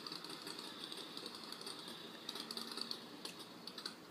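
Faint rapid ticking in two short runs in the second half, from a tablet with a motorcycle sound app open.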